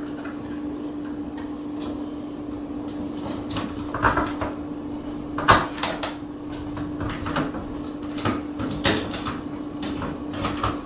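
Doorknob and latch being worked by hand, with a scatter of metallic clicks, rattles and knocks; the knob is sticking and will not turn all the way.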